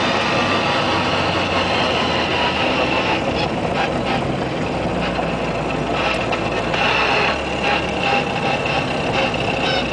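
Cabin sound of a Jem KII's 998cc Mini Cooper A-series four-cylinder, with Weber 40 carburettor and straight-cut transfer gears, running under load on the road. The engine note shifts a few times as the revs change, over a steady high gear whine.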